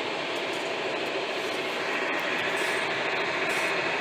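John Deere 6155R tractor's six-cylinder diesel engine running under load with two loaded trailers in tow, heard from inside the cab as a steady drone that grows a little louder about two seconds in.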